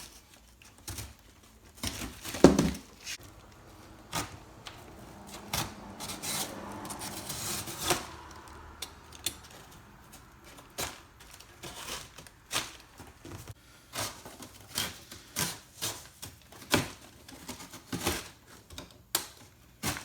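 Razor blade slicing down the corners of a cardboard box, with scattered clicks and knocks from handling the box. There is one loud knock about two and a half seconds in, and a longer scraping cut from about five to eight seconds in.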